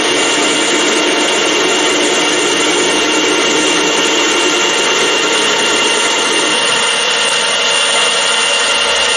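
Metal lathe running under power while its tool takes a cut along a bar, following a copy template and peeling off a long curling chip. The sound is a steady hiss with a steady high whine over it.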